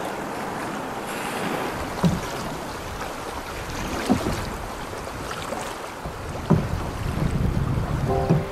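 Fast river water rushing past a canoe, with wind on the microphone and a low thump every couple of seconds.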